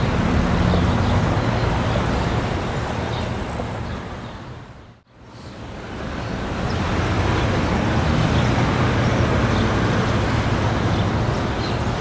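City street traffic: motor vehicles running and passing in a steady wash of road noise, with an engine hum at the start. The sound fades out to silence about five seconds in, then fades back in.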